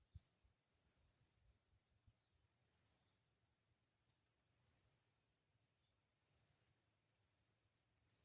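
Faint insect calling, like crickets: a steady high-pitched trill with a louder pulse about every two seconds.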